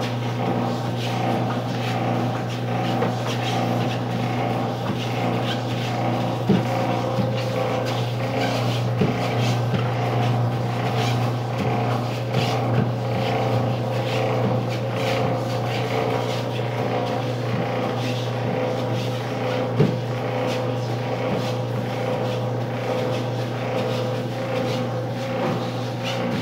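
Steady machine hum from an electric motor, even and unchanging, with a few faint clicks and knocks.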